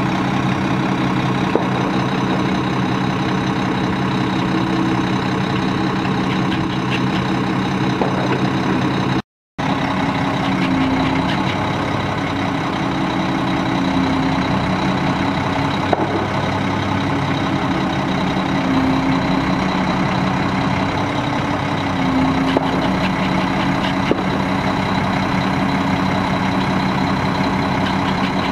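Mack E7 12-litre inline-six diesel engine idling steadily, with a few small clicks and a brief total cut-out of the sound about nine seconds in.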